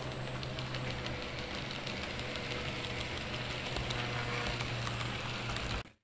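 Model train running over layout track: a steady rumble of wheels on rail with a low hum and many faint ticks. The sound cuts off abruptly near the end.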